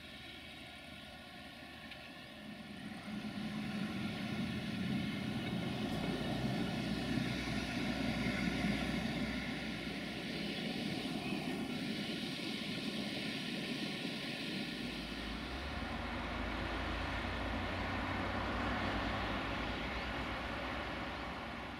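A propeller aircraft's engine droning overhead. It grows louder about three seconds in and then holds steady.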